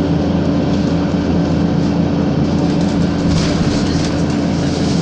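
Isuzu Citibus city bus moving at steady speed, heard from inside the passenger cabin: a constant engine hum with road noise.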